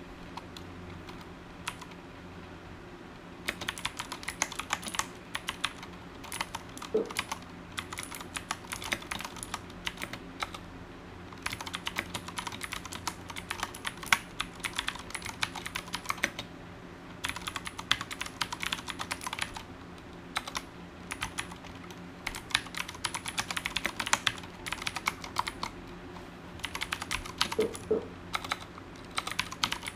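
Ducky One TKL mechanical keyboard with clicky Cherry MX Blue switches being typed on: rapid runs of sharp keystroke clicks beginning a few seconds in, broken by short pauses.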